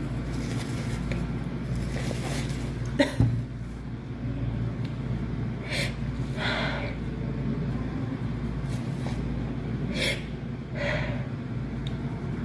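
A girl sneezing once, sharply, about three seconds in, with a couple of shorter breathy sounds later. A steady low hum runs underneath.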